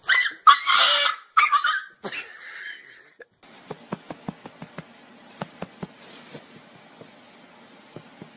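A dog giving loud, high-pitched vocal calls in quick broken bursts for about two seconds. After a cut, a run of light, sharp taps follows over a faint hiss.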